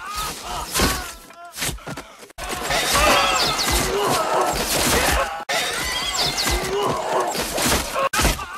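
Volley of arrows thudding and clattering into wooden shields, with men groaning and crying out. Sharp impacts come in the first two seconds, then a dense battle din of clatter and voices from about two and a half seconds in.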